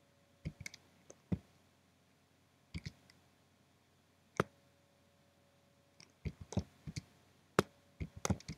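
Keystrokes on a computer keyboard. A few scattered key clicks in the first second and a half, two more spread over the middle, then a quicker run of keypresses over the last two and a half seconds.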